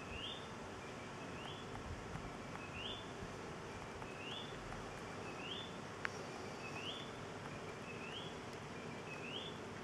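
An animal's short rising chirp, repeated steadily about once a second, over a steady outdoor background hum. A single sharp click sounds about six seconds in.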